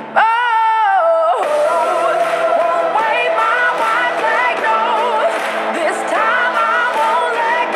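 Pop song with a lead singer over a backing track. About a second and a half in, a long held sung note falls away and the melody runs on.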